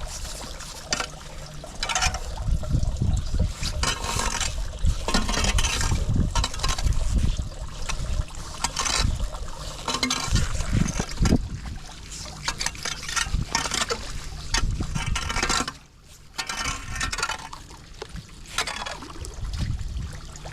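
Floodwater splashing and trickling as it drains through a street storm drain, in irregular surges over a low rumble.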